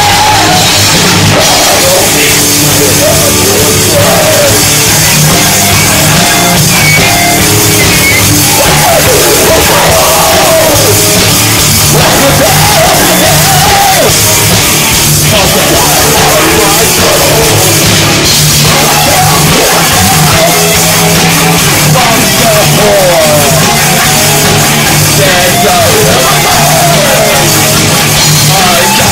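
Punk-metal band playing live and loud, with distorted electric guitar and shouted vocals.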